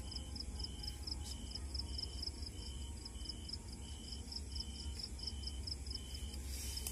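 Crickets chirping in rapid even pulses, about five a second, with a second, lower insect call repeating about every two-thirds of a second, over a steady low rumble.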